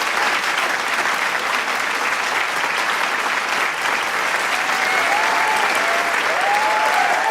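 Large crowd applauding with dense, steady clapping, with a few voices cheering over it from about halfway, more of them toward the end.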